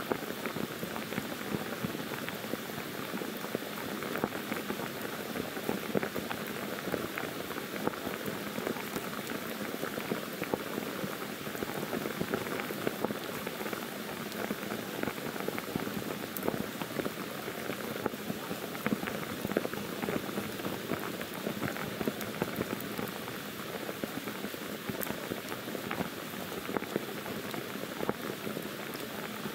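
Heavy monsoon rain falling steadily on forest foliage: an even hiss with many close individual drops ticking through it.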